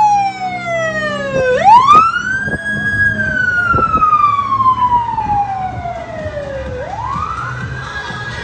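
Emergency vehicle siren wailing. Its pitch sweeps up quickly, then slides slowly down, in two long cycles of about five seconds each.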